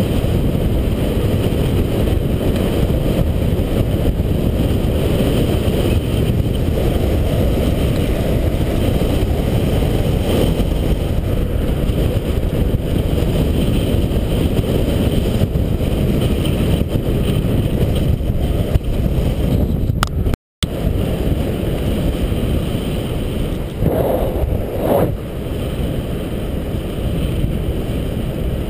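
Wind buffeting the microphone of a bike-mounted action camera along with mountain-bike tyres rolling on tarmac, a steady low rumble. The sound cuts out for a moment about two-thirds of the way through.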